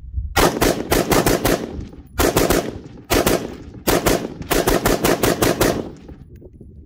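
Lead Star Arms Grunt AR-15 pistol with a 10.5-inch barrel, firing 5.56 rounds in rapid semi-automatic fire. There are several quick strings of shots, about five or six a second, with short pauses between them, and the firing stops near the end.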